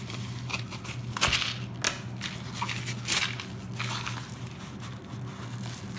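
Yellow padded mailer envelope being crinkled and torn open by hand: irregular crackling rustles and snaps, the loudest a little over a second in.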